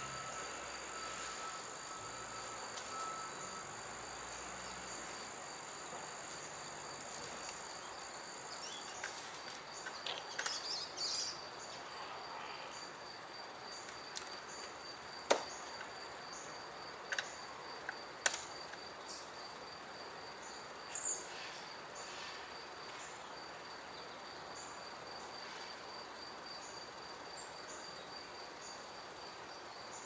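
Insects, crickets, trilling steadily in a fast, even pulse throughout, with a second higher insect buzz that stops about eight seconds in. A few brief high chirps and sharp clicks stand out in the middle.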